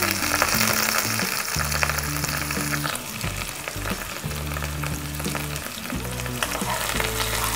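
Chopped onions sizzling in hot cooking oil in a frying pan, loudest for the first few seconds and then settling to a softer sizzle.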